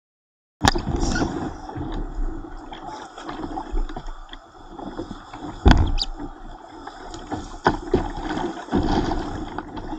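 Churning whitewater rushing and splashing around a kayak's bow, close on the microphone, with sharp splashes and knocks against the hull, the loudest just before the middle. It cuts in abruptly about half a second in.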